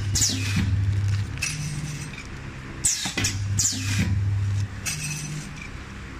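ZT-38K vertical sachet packing machine running through its packing cycle: a motor hum lasting a little over a second, then sharp clacks and short falling hisses, repeating about every three seconds.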